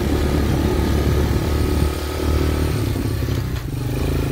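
Honda Fat Cat TR200's single-cylinder four-stroke engine running as the bike is ridden, close to the rider. The engine note changes about three seconds in.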